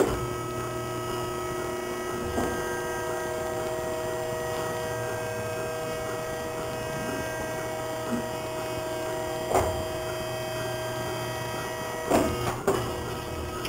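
Steady electric machinery hum with several fixed tones, typical of a motor or pump running in a dairy barn, with a few sharp knocks about two and a half seconds in, near the middle and twice near the end.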